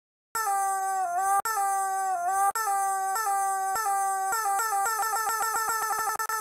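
Rubber screaming-chicken squeeze toy squawking as it is squeezed over and over: long honking squawks about a second each, each sagging in pitch at the end, then shorter and quicker squeezes speeding up into a rapid run of short squawks near the end.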